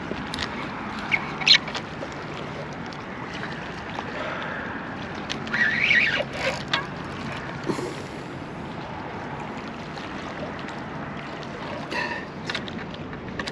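Steady outdoor rushing of wind and water, with a few short clicks and knocks, the most distinct a brief cluster about six seconds in.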